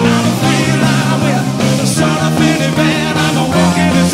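Live rock band playing, with a male lead singer singing over electric guitar and drums.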